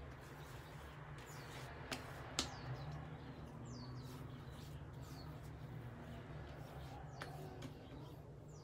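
Faint, steady low hum of the room, with two sharp slaps about two seconds in from hands patting aftershave splash onto the face, and another near the end. Small birds give short, falling chirps faintly now and then.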